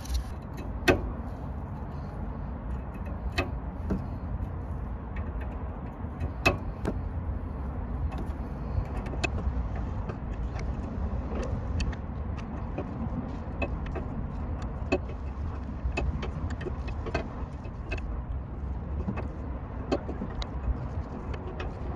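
Scattered light metallic clicks of a wrench working the brake hose union at a rear brake caliper, over a steady low rumble.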